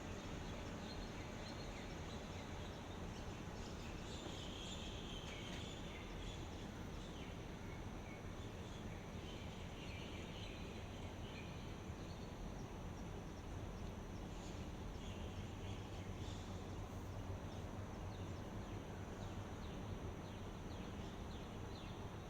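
Outdoor dawn ambience: a steady background hiss with a constant high-pitched insect drone. Faint bird chirps come in about four to six seconds in and again around ten to twelve seconds.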